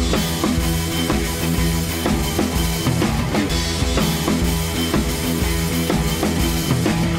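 Music with a steady drum-kit beat and bass drum.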